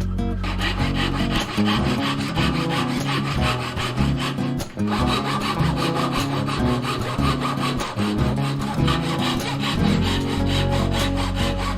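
A hand tool working wood in rapid rubbing strokes, over background music with a held bass line.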